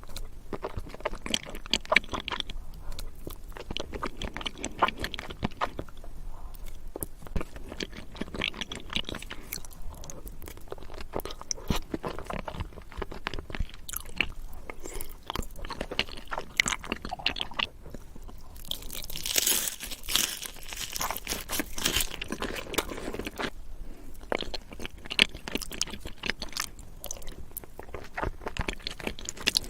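Close-miked eating: a person biting, crunching and chewing food in irregular, crackly mouthfuls, with a hissier, louder stretch about two-thirds of the way through.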